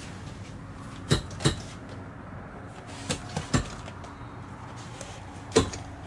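School-bus lap belts being pulled out, jerked and let snap back into their retractors. This gives about six sharp clacks: a pair about a second in, three in quick succession around three seconds in, and one near the end. The jerk tests that each retractor locks, as it must in a sudden stop.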